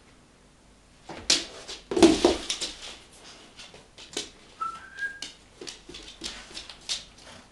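A golden retriever moving about right against the camera: claws clicking on a hard floor and knocks and rubs from the handling, loudest about two seconds in. A short high squeak, rising a little in pitch, sounds near the middle.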